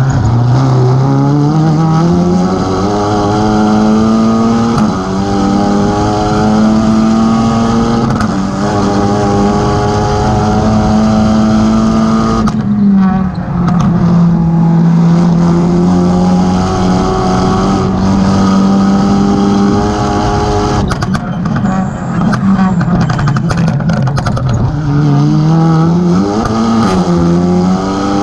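Audi RS3 TCR race car's 2.0-litre turbocharged four-cylinder heard from the cockpit at full racing speed. The engine note climbs hard through several quick upshifts, drops as the driver lifts and brakes about a dozen seconds in, holds steady, then falls through downshifts with exhaust crackles before climbing again near the end.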